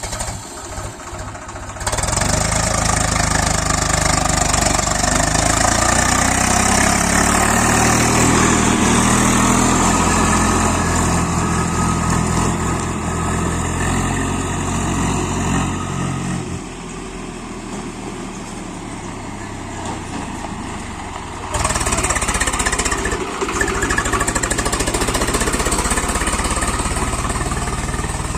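Diesel engine of a JCB 3DX backhoe loader working under load, its revs rising and falling. Past the halfway point it drops to a lower, quieter note, then jumps sharply back up about three-quarters of the way in.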